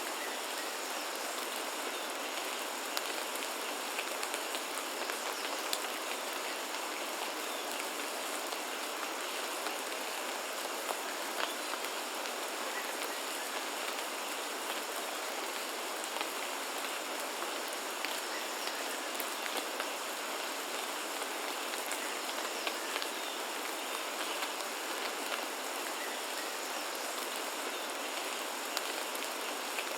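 Steady rain falling, an even hiss with scattered sharper drop taps.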